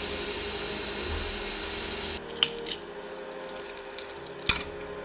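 Ender-3 S1 Pro 3D printer running for about two seconds: fan hiss and a whir of stepper motors with shifting tones. It then stops, and a thin printed plastic part is peeled off the textured build plate with crackles and a few sharp snaps, the loudest near the end.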